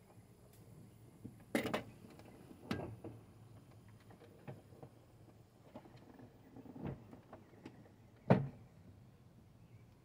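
Scattered knocks and clatters of hands working on a pickup truck's inner door panel and plastic trim, a few seconds apart, the loudest about eight seconds in.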